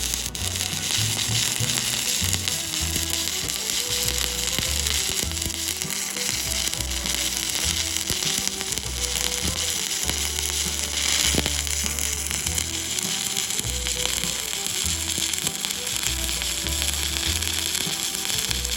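Stick-welding arc crackling and sizzling steadily as an electrode runs a bead in the flat (1G) position.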